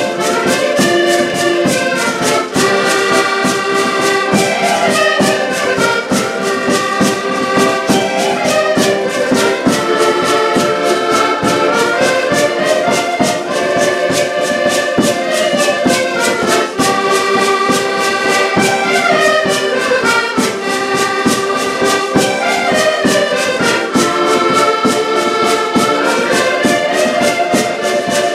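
An ensemble of diatonic button accordions playing a tune together, with a fast steady beat running under the melody.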